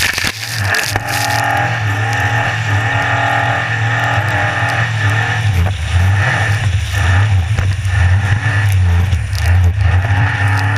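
A racing powerboat's engine running at speed, heard from on board. Short splashes and knocks of spray and of the hull striking waves run over the steady engine note, and there is a brief break in the sound right at the start as spray washes over the camera.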